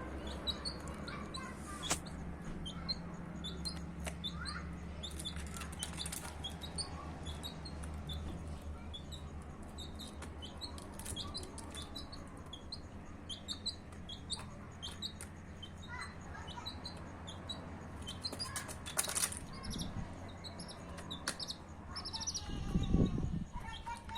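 Chicks peeping, many short high chirps one after another, with scattered sharp clicks, and a louder low rumble near the end.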